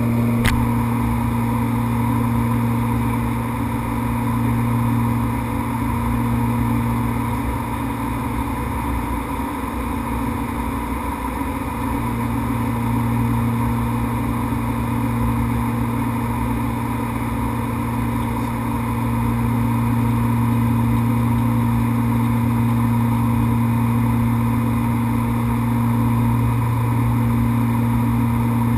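Twin turboprop engines and propellers of a Beechcraft King Air 100 droning steadily in cruise flight, heard from inside the cockpit. A deep, even propeller hum carries a fainter, higher whine over it.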